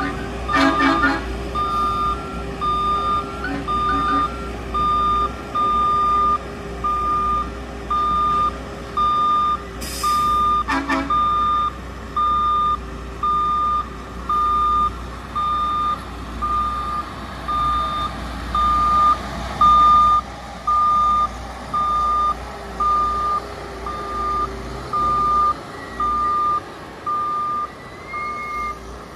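Kershaw rail tie crane's backup alarm beeping steadily about once a second as the machine travels on the track, over the constant hum of its engine. A couple of short clanks come about a second in and again around ten seconds in.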